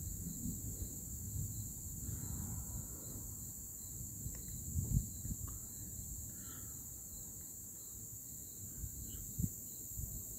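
Steady high-pitched night chorus of crickets, over a continuous low rumble with a few dull thumps.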